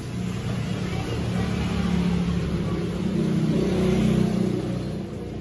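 A low engine hum that swells over about four seconds and then fades, like a motor vehicle passing.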